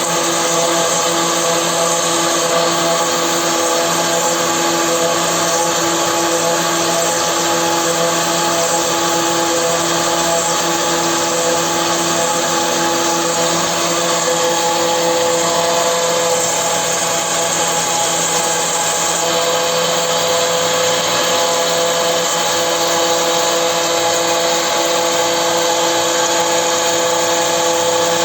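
CNC marble router running steadily: a loud, constant machine whine made of several steady tones over a wide noisy hiss.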